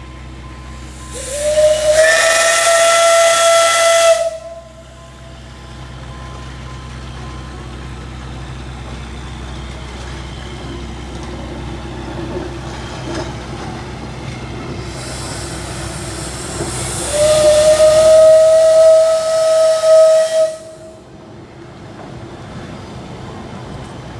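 Steam whistle of the Alishan Forest Railway's Shay No. 25 geared steam locomotive blown twice, about three seconds each time, with a hiss of steam. Each blast slides up briefly at the start and then holds a single note. A steady, quieter noise lies between the blasts.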